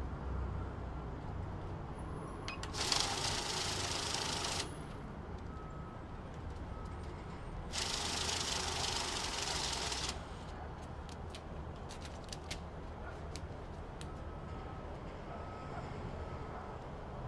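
Safescan banknote counter running a stack of bills through twice, each run a steady whirring riffle of about two seconds. Between the runs, light clicks and rustles of bills being handled.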